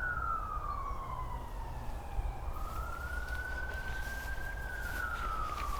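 Emergency vehicle siren wailing slowly: its pitch falls, climbs back up and holds, then falls again near the end, over a steady low rumble.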